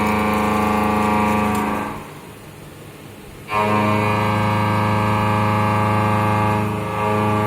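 Metal-cutting machine making a steady, pitched droning hum while it cuts a workpiece. The hum stops about two seconds in and starts again sharply a second and a half later, as a new cutting pass begins.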